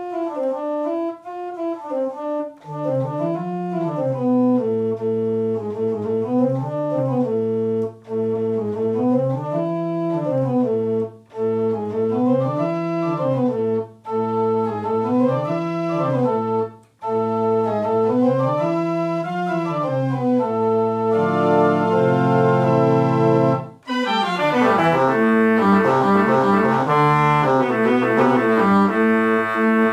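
Church pipe organ pipes played from a MIDI keyboard: a repeating phrase that climbs and falls about every three seconds over a held low note, with short breaks between phrases. About three-quarters of the way through, the sound turns fuller and brighter.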